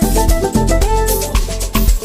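Amapiano dance music: a steady deep bass and kick beat, about two hits a second, under held keyboard chords and crisp percussion.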